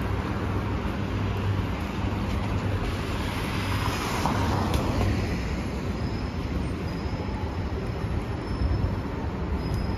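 Steady city traffic noise, with a car passing on wet pavement whose tyre hiss swells and fades about four seconds in.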